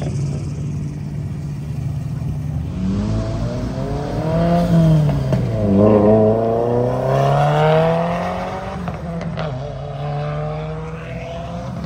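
A car accelerating away under throttle, its engine note rising, falling briefly about halfway through, then climbing again to its loudest before settling into a lower, steadier note.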